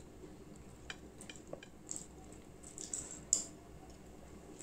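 Fingers picking through and pulling a piece of chicken curry off a plate: scattered soft clicks and squelches, the sharpest click about three seconds in.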